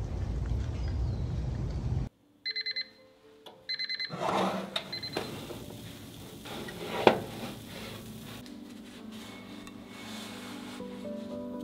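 Wind rumbling on the microphone, then cut off by an oven timer beeping in two quick bursts of beeps about a second apart. A sharp clank of the baking dish or oven follows, and soft music comes in near the end.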